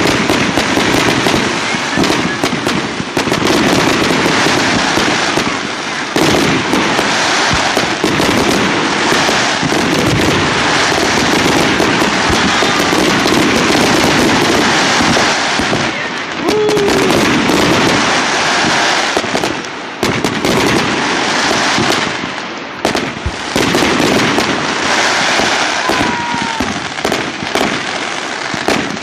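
Fireworks display going off in a dense, continuous barrage of bangs and crackling, with hardly a pause.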